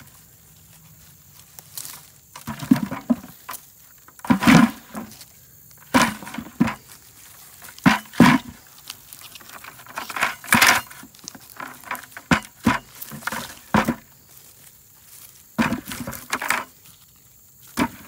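Dry sweet potato vines and weeds rustling and soil scraping as sweet potatoes are dug and pulled up by hand, close to the microphone, in irregular bursts of crackling with short pauses between.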